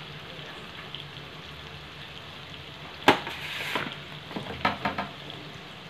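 Mushrooms, baby corn and bell peppers frying in oil in a nonstick pan, sizzling steadily on a low flame. About three seconds in there is a sharp knock and a louder stretch of sizzle, then a few more clatters.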